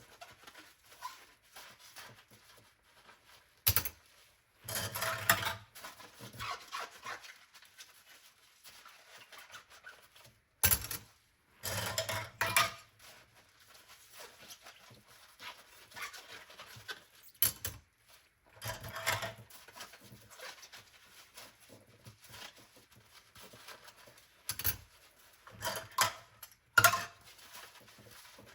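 Dishes being washed by hand in a sink: sharp clinks of dishware every several seconds, each followed by a second or so of water and scrubbing noise.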